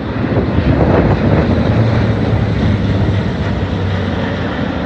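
C-130 Hercules turboprops and V-22 Osprey proprotors passing overhead together, a loud steady drone of engines and propellers with a low hum that grows stronger about two seconds in.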